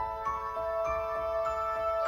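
Background music: gentle instrumental track with bell-like sustained notes changing about every half second over a soft beat.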